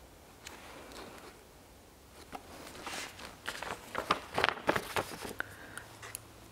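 Paper planner stickers being handled and pressed onto a page: faint rustling at first, then from about two seconds in a run of small clicks, taps and paper rustles.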